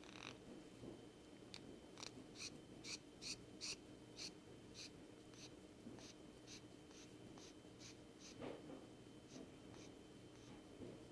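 Rainbow lorikeet making faint, short raspy clicks, about two a second, while resting in a hand.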